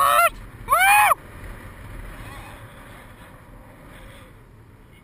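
A paraglider pilot whooping twice in excitement, two loud rising-and-falling yells in the first second or so, followed by a steady rush of wind noise on the microphone.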